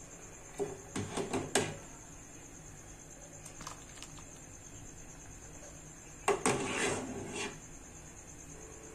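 Steel ladle clinking and knocking against a ceramic bowl while soup is ladled into it, in two short bursts: one about a second in and a longer one around six to seven seconds.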